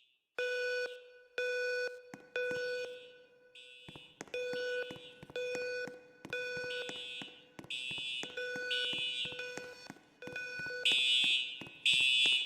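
Building fire alarm sounders pulsing on and off roughly once a second, each pulse a short, steady electronic horn tone. Two sounders run a little out of step, and the higher-pitched one grows louder near the end.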